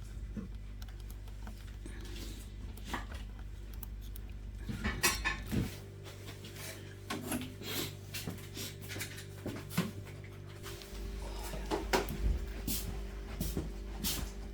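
Irregular knocks, clunks and clinks of things being handled, over a low steady hum.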